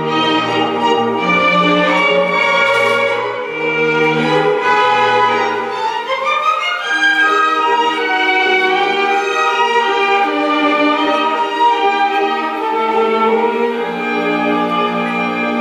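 Instrumental dance music with a moving bass line and a rising run of notes about six seconds in.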